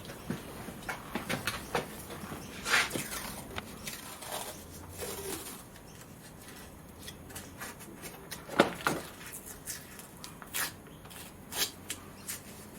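Small workshop parts being handled and fitted by hand: irregular light clicks, taps and a few short scrapes, with the loudest knock about eight and a half seconds in.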